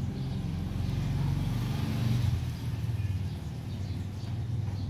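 Low rumble of a passing motor vehicle, growing louder about two seconds in and then easing off, over the faint clicking of a rabbit chewing banana.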